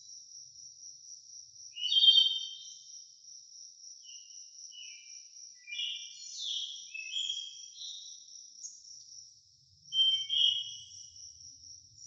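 Songbird singing short whistled phrases over a continuous high insect trill: one loud phrase about two seconds in, a run of quicker notes in the middle, and two more phrases near the end.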